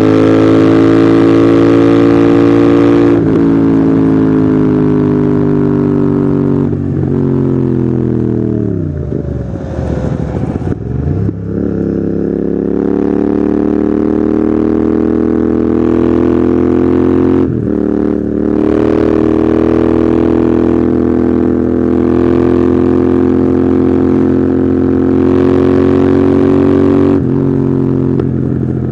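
Royal Enfield Continental GT 650's parallel-twin engine through an aftermarket Red Rooster exhaust, ridden at steady revs with brief dips at gear changes. About eight seconds in the throttle is shut and the revs fall away sharply, with irregular pops and crackles on the overrun. The engine then pulls up again.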